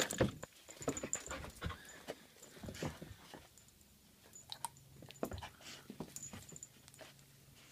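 Vizsla dog panting, excited to be taken for a walk, with scattered light clicks and taps and a short lull midway.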